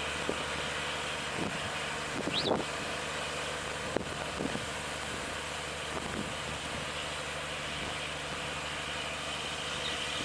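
An engine idling with a steady low hum. A few faint short sounds lie over it, among them one short high chirp about two and a half seconds in.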